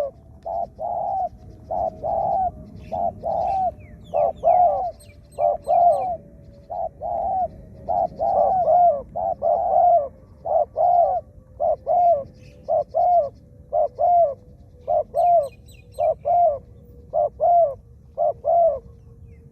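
Spotted doves cooing: a long run of short, repeated coos in quick groups, with small birds chirping faintly in the background.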